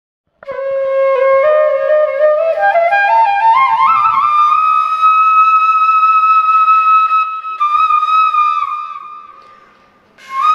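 Solo flute melody: a phrase climbing step by step to a long held high note that fades away, then a new ornamented phrase starting near the end.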